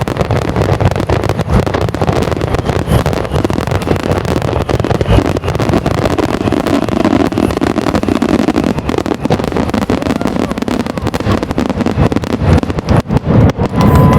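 Dense fireworks barrage: a rapid run of bangs and crackling bursts over a continuous low rumble.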